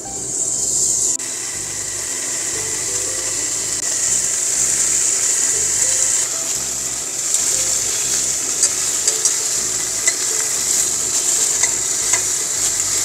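Pork belly strips sizzling in a hot non-stick frying pan. The sizzle starts suddenly as the meat goes in and holds steady, with scattered sharp pops from the fat in the second half.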